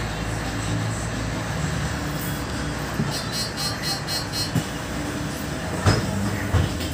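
Mercedes-Benz Citaro city bus's diesel engine idling, heard from inside the passenger cabin, with a short run of rapid high ticks about three seconds in and a single knock near the end.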